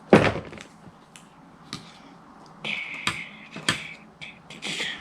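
Clicks and taps of plastic toy parts and packaging being handled, with a loud knock right at the start. Around the middle and again near the end, a short scraping rustle of plastic.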